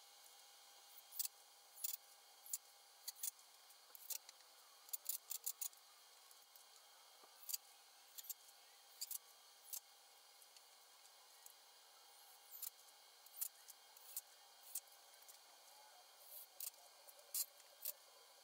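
Faint, irregular clicks and light taps from hands handling lumber and a speed square, over a faint steady hum.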